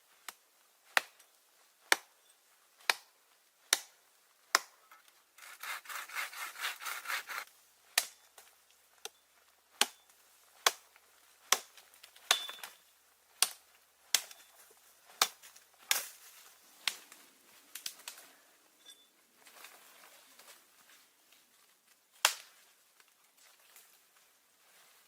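Wood being worked by hand at camp: sharp wooden knocks roughly once a second, with about two seconds of fast sawing strokes a quarter of the way in.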